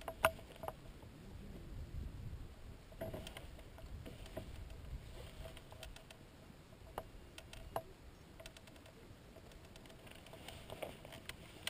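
Wind buffeting the microphone in gusts, with a few faint clicks and ticks.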